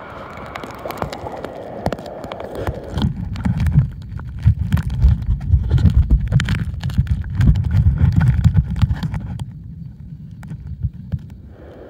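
Seawater heard by a camera at the surface, a splashy hiss, then about three seconds in the sound turns muffled as it goes underwater: a low rumble of moving water with scattered sharp clicks and crackles, easing near the end.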